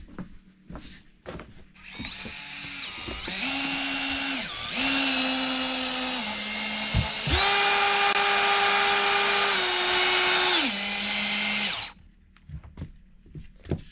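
Cordless drill drilling a hole into a wooden board. The motor starts about two seconds in and whines at speeds that step up and down as the trigger is worked, with a brief stop midway. It runs at its fastest for a few seconds, then slows in steps and stops.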